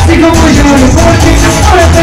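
Loud Latin dance music from a live band on stage: a melody line moving over heavy bass, playing without a break.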